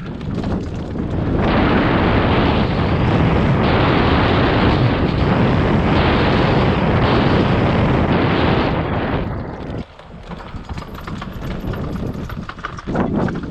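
Wind rushing over the microphone of a fast-moving off-road e-bike, with tyre and trail noise under it. The rush swells about a second and a half in, drops off briefly near ten seconds, then builds again.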